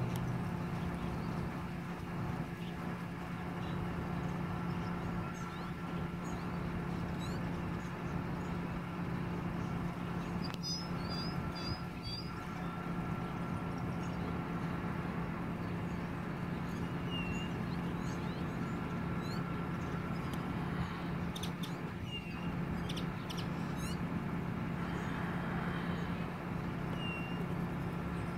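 Steady low mechanical hum of distant heavy industrial machinery, even throughout, with birds chirping now and then, including a quick run of chirps about ten seconds in.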